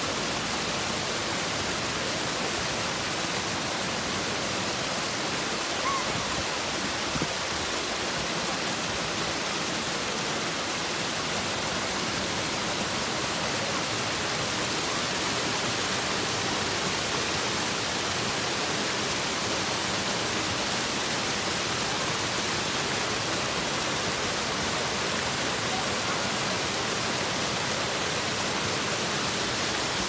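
Small waterfall and rock cascade, water falling over boulders into a shallow pool: a steady, even rush of water.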